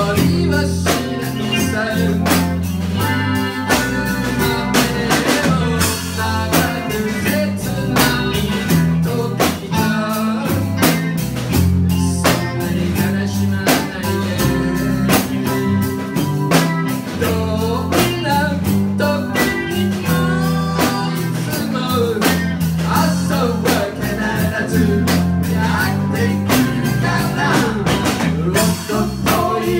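Live band playing amplified through a club PA: drum kit keeping a steady beat, electric guitar and bass guitar, with a man singing at times.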